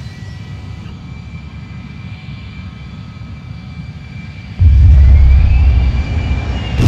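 Cartoon rocket launch sound effect: a steady low engine rumble, then about four and a half seconds in a sudden, much louder low rumble as the rocket blasts off, with a rising whine over it.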